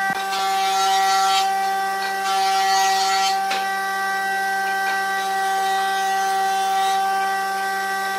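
A steady high-pitched hum made of several held tones, with two short stretches of scratchy, scraping noise in the first few seconds.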